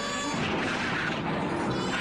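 Film soundtrack: a deep rumbling boom swells up about a third of a second in, over the music, and dies away after about a second, when the music's held tones come back.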